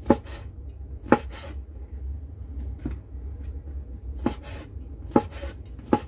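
Chinese cleaver slicing squid into pieces on a wooden chopping board: the blade knocks sharply on the board about once a second, six times, one of them lighter.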